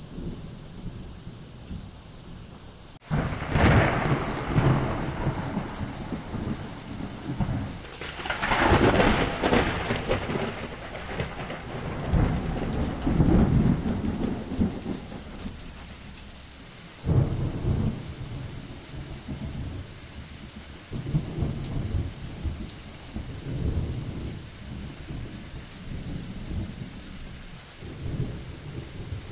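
Thunderstorm: steady rain with repeated rolls of thunder. A loud peal breaks in suddenly about three seconds in, a second strong one swells around nine seconds, and lower rumbles come and go through the rest.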